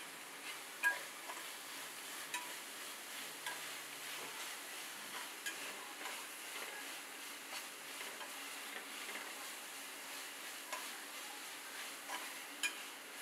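Metal spatula stirring and scraping frying onions and green chillies in a pot, over a steady sizzle, with scattered clicks and knocks of the spatula against the pot. The sharpest knock comes about a second in, another near the end.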